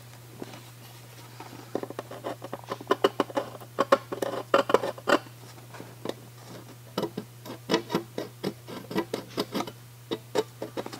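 A steel scribe scratching a line around a small template part onto a strip of hard steel, in quick repeated strokes with a short pause about halfway.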